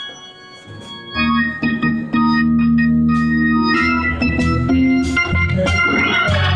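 Organ playing held gospel chords: soft at first, then a full chord with deep bass comes in about a second in and the playing swells louder a second later.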